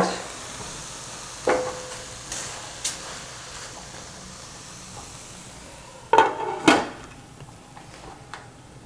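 Diced mushrooms and bell peppers sizzling gently in a stainless steel pan, dry-sautéed without oil, with a silicone spatula knocking and scraping as they are stirred. About six seconds in, a glass pan lid is set down with two sharp clanks and a short metallic ring.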